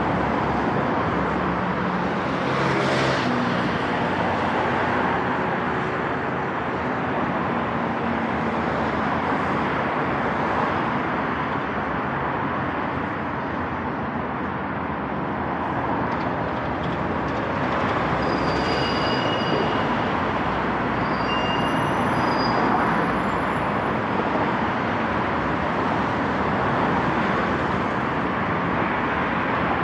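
Steady road traffic noise from a busy multi-lane street, with a heavy vehicle passing a few seconds in and a few short high-pitched squeals a little past the middle.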